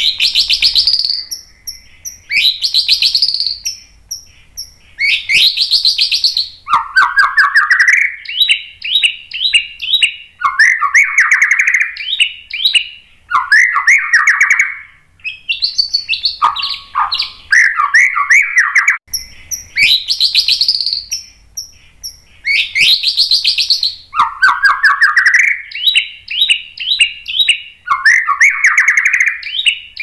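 Male white-rumped shama (murai batu) singing a long run of loud, varied song phrases. Each phrase lasts a second or two, mixing high clear whistles with rapid trills and sweeping notes, with short pauses between phrases.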